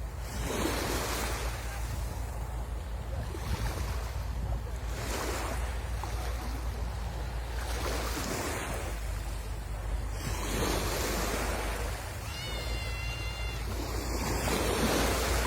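Sea waves breaking and washing up the shore in repeated surges every few seconds, over a steady low rumble.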